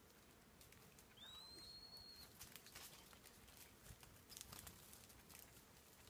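A single bird's thin whistled call about a second in, rising briefly and then held for about a second, over faint scattered ticks and rustles.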